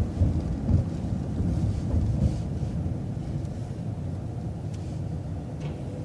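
City transit bus running through a left turn: a low, steady rumble of engine and road noise with a few faint knocks.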